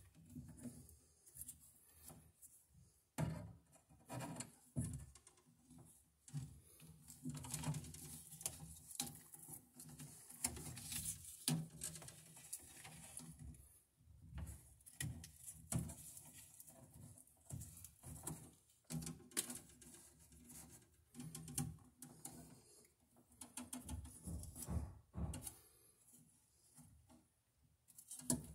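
Pliers and stiff 10-gauge electrical cable being handled and worked: irregular small clicks, scrapes and rustles with short pauses between them.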